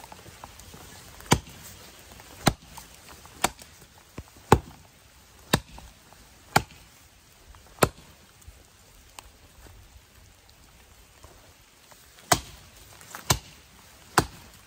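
Hults Bruk 24-inch bushcraft axe chopping into the trunk of a standing sapling: nine sharp blows about a second apart, with a pause of about four seconds after the seventh.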